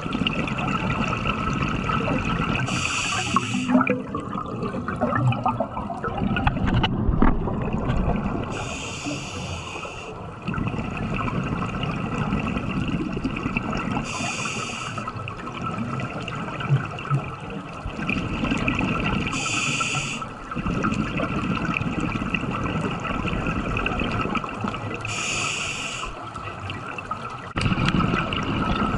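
Scuba breathing through a regulator, heard underwater: a hiss on each inhalation about every five to six seconds, with rumbling exhaled bubbles between breaths.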